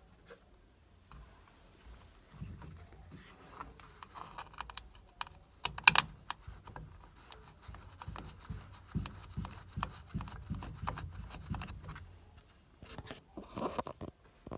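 Irregular light clicks, taps and rattles of small hard parts and tools being handled, with one sharper knock about six seconds in and another flurry near the end.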